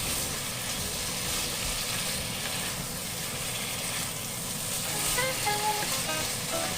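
Lamb leg slices frying in a pan: a steady sizzle of hot oil.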